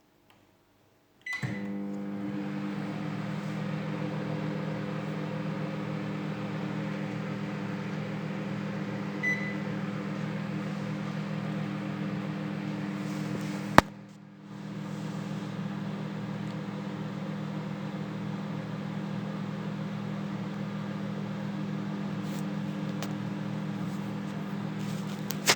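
Sharp microwave oven switching on with a short beep and then running with a steady hum. About halfway through, a sharp click cuts the hum out for a moment before it resumes; there is another click near the end. The oven, which would not start before its repair, now runs and heats.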